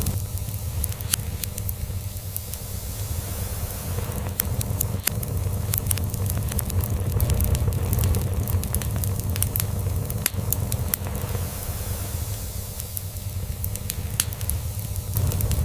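Log fire crackling with frequent sharp pops, over the low rumble of a cat purring that swells and eases every few seconds.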